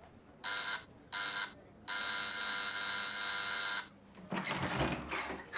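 Electric doorbell buzzer rung three times: two short buzzes, then one held for about two seconds. Near the end, the clatter of the front door being unlocked and opened.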